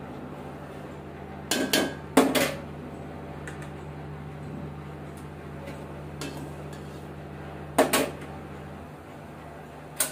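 A metal spoon clanks against an aluminium pot of hot milk that is being curdled into chhena with vinegar: two clanks about two seconds in and another near eight seconds. At the very end the spoon is set down with a short clack. A steady low hum runs underneath.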